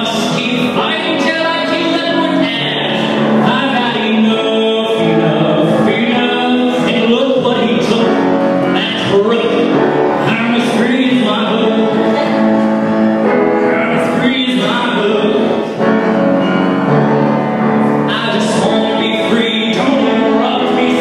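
A man singing a song through a microphone and PA, accompanied by an upright piano.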